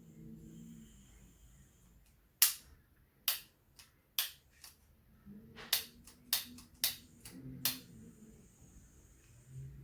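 A series of about ten sharp, irregularly spaced clicks or taps over some five seconds, starting a couple of seconds in.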